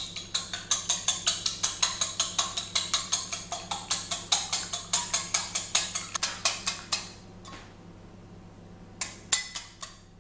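Eggs being beaten in a bowl: a utensil clicks rapidly and evenly against the bowl's side, about five clicks a second. It stops about seven seconds in, then a few more clicks come near the end.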